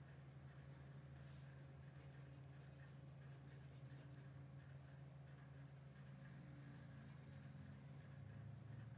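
Graphite pencil shading on paper: many faint, quick strokes, over a low steady hum.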